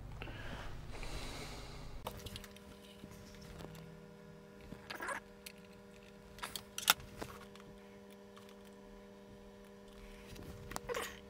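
Hands handling a USB EPROM programmer with the chip in its ZIF socket: a soft rustle at first, then a few sharp clicks, the loudest about seven seconds in, over a faint steady electrical hum.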